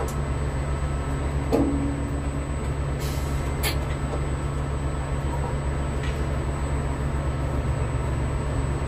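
Steady low machinery drone with a thin high whine running over it, the hum of a tower crane's machinery heard from its cab, with a few faint clicks.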